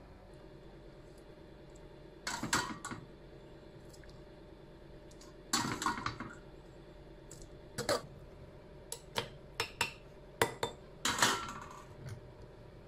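Metal spoon clinking and scraping against a stainless steel colander, pot and jar funnel as cooked tomatoes are spooned into a glass jar. Several short clatters come a few seconds apart, then a quicker run of clinks about nine to eleven seconds in.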